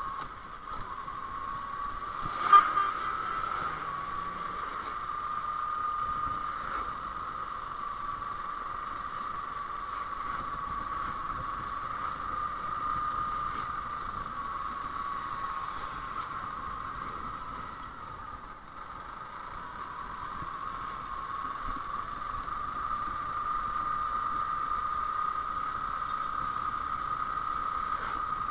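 Motorcycle engine running while riding, a steady humming tone that drifts slowly up and down in pitch. A single sharp knock about two and a half seconds in, and the sound dips briefly about eighteen seconds in.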